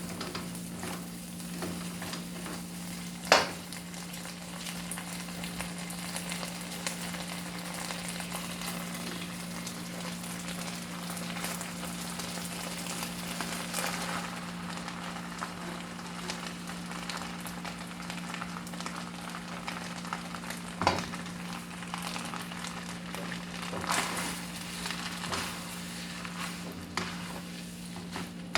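Food sizzling as it fries in a pan while it is stirred, with a few sharp knocks of the utensil against the pan and a steady low hum underneath.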